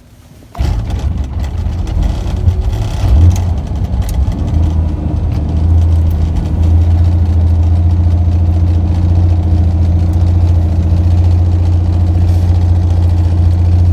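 Helicopter engine and rotors running, a loud low drone. It comes in suddenly about half a second in, builds over the next few seconds, then holds steady.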